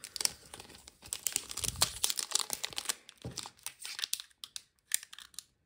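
Wrapper of a Footy Stars trading card pack being torn open and crinkled by hand: a run of irregular crackles and rips.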